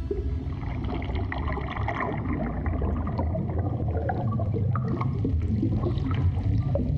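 Water bubbling and gurgling over a steady low rumble, with many small scattered clicks: an underwater ambience.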